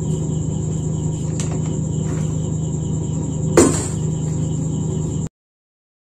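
Steady background hum with a high, thin whine and a faint pulsing tone. A single knock about three and a half seconds in as the plastic induction-cooktop casing is handled, then the sound cuts out abruptly to silence.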